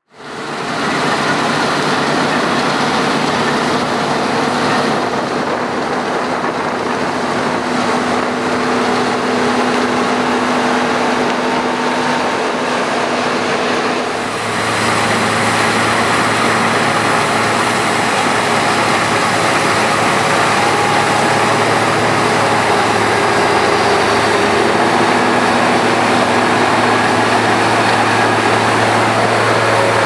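Claas combine harvester running steadily while cutting and threshing standing crop: a continuous engine hum under a dense mechanical rush. About halfway through the sound shifts, and a steadier, deeper hum comes to the fore.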